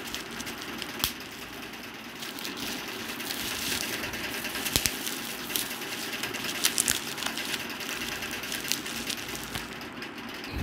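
Plastic bubble wrap crinkling as hands squeeze and unwrap it, with scattered sharp clicks.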